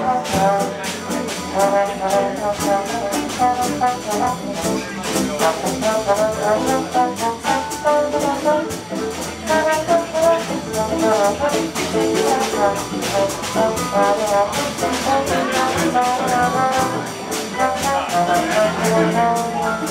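Live small-band jazz: a trombone solos with a moving melodic line over a steady rhythm section of guitar and double bass, in an instrumental break with no vocal.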